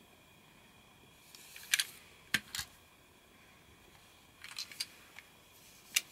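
Plastic toy train cars being handled: a few sharp clicks and clacks of hard plastic, in one cluster from about one to two and a half seconds in and another from about four and a half to six seconds.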